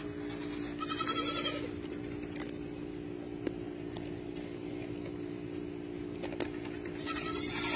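A goat bleating twice, a wavering call about a second in and another near the end, over a steady low hum.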